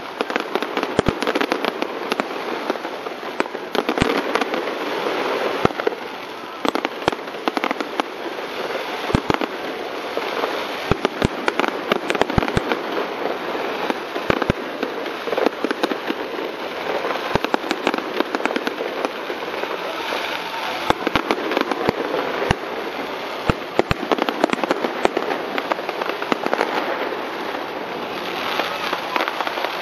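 Aerial fireworks going off continuously: a dense crackle of bursting shells with frequent sharp bangs.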